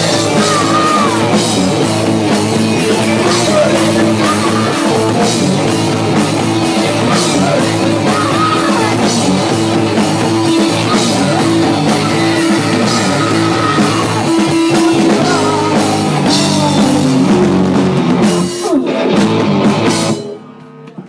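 Live rock band playing loud, with electric guitar, drum kit and a singer's voice over them. The song stops suddenly near the end.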